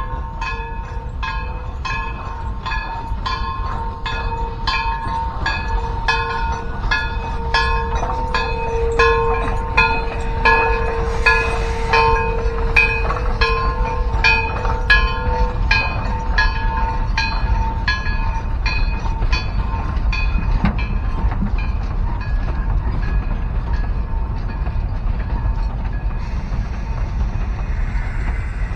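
East Broad Top narrow-gauge steam train rolling slowly past, its wheels clicking about twice a second on the rails. A steady high squeal runs under the clicking through the first half and fades out after about 17 seconds.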